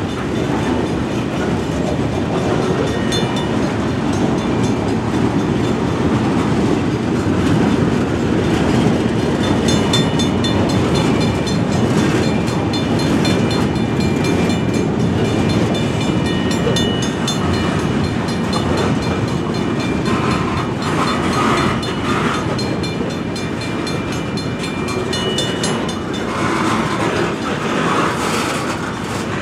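Freight cars rolling past at steady speed, their steel wheels rumbling and clacking over the rails. Thin high tones come and go above the rumble.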